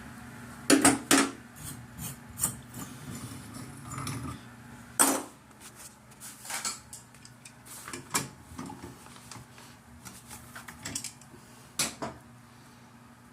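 Metal tools and valve parts clinking and knocking irregularly while a shower valve is taken apart; a low hum underneath stops about four seconds in.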